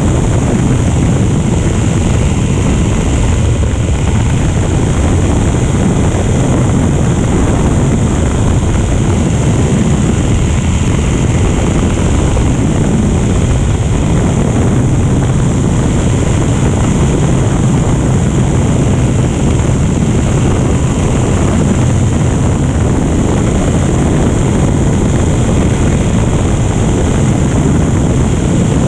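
Steady drone of a small propeller-driven aircraft's engine in flight, mixed with rushing wind noise, unchanging throughout.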